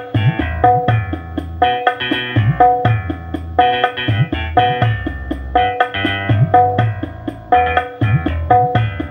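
Percussion-heavy music played loud through a bare 15-inch RCF LF15X400-copy low-mid woofer, fed straight from a phone into a power amplifier with no processing. It has a steady beat of deep drum hits that bend in pitch, and very little treble.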